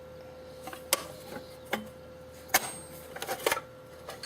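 Hand tools and cases being handled in a tool chest drawer: several sharp clacks and knocks about a second apart, with a quick run of them near the end.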